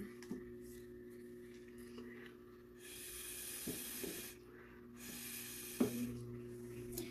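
Air blown through a drinking straw onto wet alcohol ink on an epoxy-coated tumbler, pushing the ink into waves: two long puffs, the first about three seconds in lasting over a second, the second about five seconds in lasting about a second.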